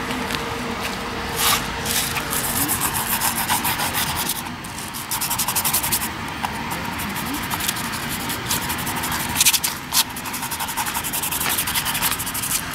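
Hands rubbing back and forth over a sheet of paper on a clipboard, grinding crushed leaves and petals into it with rapid rubbing strokes.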